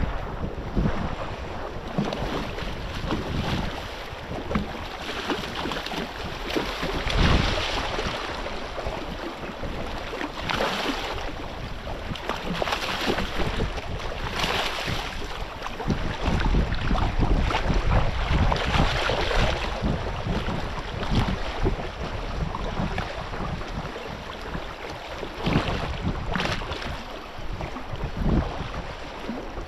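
Wind gusting on the microphone over the wash of moving water, with several louder surges of water noise.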